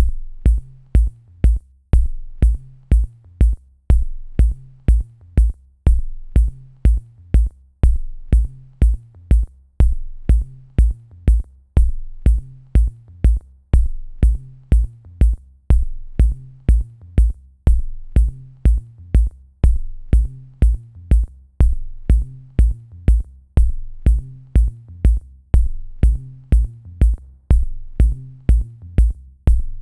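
Background electronic music with a steady drum-machine beat, a low kick about twice a second over a bass line, with light high ticks.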